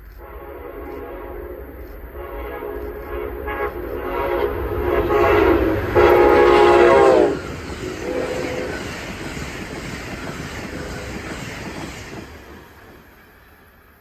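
An Amtrak train's Nathan K5LA five-chime air horn sounds as the train approaches, getting louder and ending in a loud blast about seven seconds in, where its pitch drops as the train passes. The train then rushes by, its wheels clattering on the rails, and fades away near the end.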